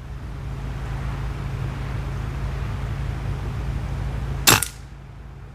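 Breeze rushing on the microphone, then a single sharp airgun shot about four and a half seconds in, firing a wadcutter pellet.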